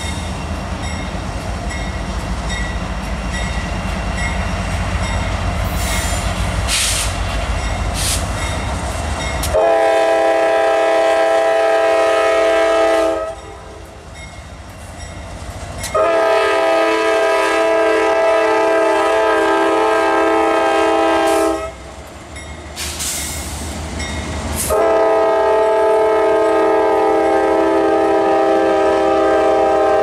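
A diesel freight train's locomotives rumble past with a few clicks from the wheels. Then the lead GE AC44CW's Nathan K5LA horn sounds three long, loud blasts, starting about ten, sixteen and twenty-five seconds in: the horn signal for the road crossing ahead.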